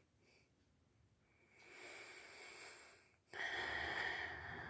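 A person with hiccups breathing close to the microphone. A soft breath comes about a second and a half in, then a louder breath starts suddenly a little over three seconds in and fades out slowly.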